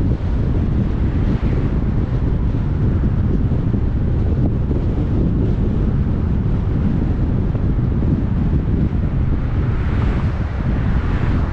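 Steady rumble of road and wind noise from a moving car, heaviest in the low end, with a brief rushing swell near the end.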